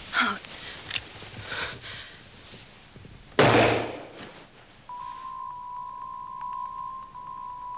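A single loud gunshot about three and a half seconds in, dying away over half a second. About five seconds in, a single high note begins and is held as the music comes in.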